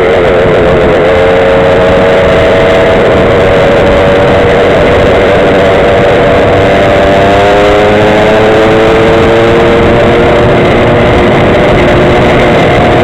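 Small two-stroke Go-Ped scooter engine running at speed, its whine sliding slowly up and down in pitch, under heavy rushing noise from riding into the wind.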